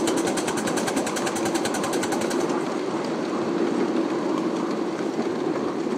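A 1½-inch scale live-steam locomotive running along the track: a fast, even clatter that stops about two and a half seconds in, leaving a steady rumble and hiss.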